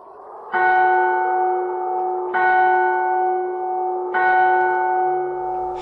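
A bell tolls three times, evenly spaced about two seconds apart, each stroke ringing on over a steady low drone.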